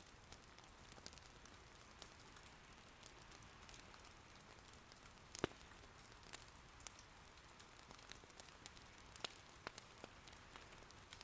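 Faint, steady rain hiss with scattered sharp pops and crackles of firewood burning in an irori hearth, one louder pop about halfway through.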